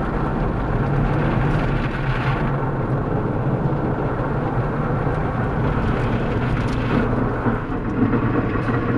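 Automatic car wash running over a car, heard from inside the cabin: water spraying and splashing against the windshield over a steady low machine hum.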